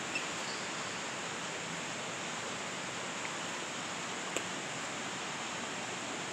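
Steady, even rushing of a nearby waterfall.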